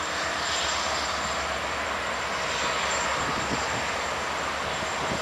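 Diesel-electric locomotive LDE GM 1132 (class 65) running with a steady engine drone as it moves slowly along the platform.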